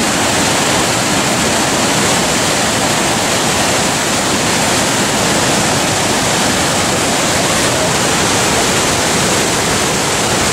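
River waterfall and whitewater rapids pouring over rock ledges: a loud, steady rush of crashing water.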